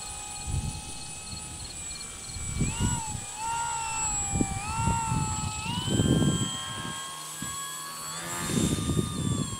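Whine of a small RC foam aerobatic airplane's electric motor and propeller, its pitch rising and dipping several times with throttle changes, then holding higher over the last few seconds. Gusts of wind buffet the microphone throughout.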